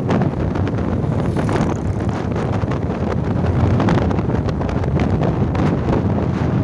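Loud, steady wind buffeting the microphone of a moving motorcycle, with the bike's running noise mixed into it.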